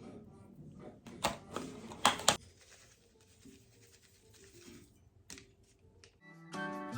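A few sharp clicks and taps of small hard objects against quiet room sound, the loudest pair about two seconds in. Background music with a steady beat comes in near the end.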